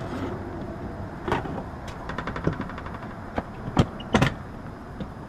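Metal clunks and clicks from handling an air-conditioner's electrical disconnect box, with the pull-out disconnect being pulled to cut power to the unit. There are several sharp knocks, a quick rattle of fast ticks about two seconds in, and a double knock near the end.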